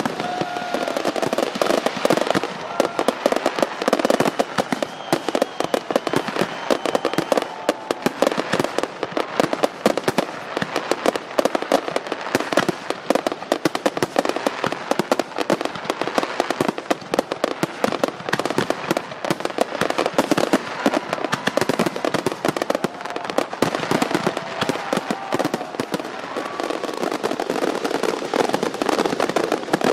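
Fireworks display: a continuous, dense barrage of bangs and crackling from aerial shells and rising stars, with no pause.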